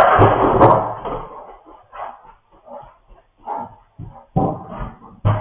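A dog making a string of short sounds, about two a second, after a loud noisy sound that fades over the first second.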